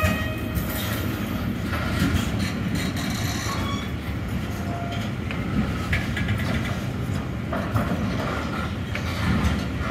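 Loaded double-deck car-transport wagons of a freight train rolling past at close range: a steady rumble of wheels on the rails, with clacks as the wheels pass over rail joints and a few brief high squeals.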